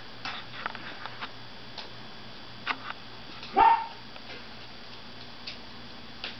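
Jack Russell terrier giving one short, rising yip a little past halfway, with a few faint clicks before and after.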